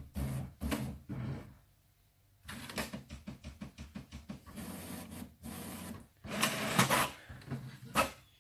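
Brother MFC-J6720DW inkjet printer's mechanism running in bursts as it works through a print. There are a few short bursts, a pause, then a long run of rapid ticks, and two louder bursts near the end.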